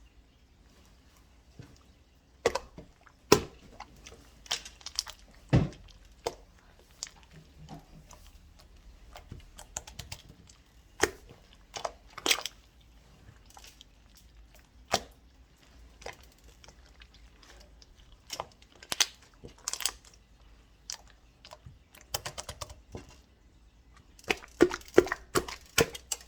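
Someone eating bead ice cream, with sharp clicks and crunches at irregular intervals and a quick cluster of them near the end.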